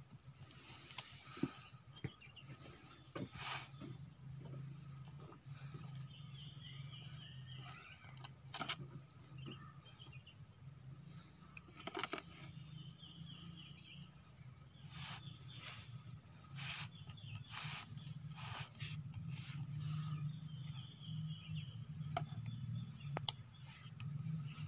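Birds chirping now and then over a steady low hum, with scattered light clicks and taps of seal rings and metal parts being handled as new seals are fitted onto an excavator's hydraulic boom cylinder; one sharp click near the end.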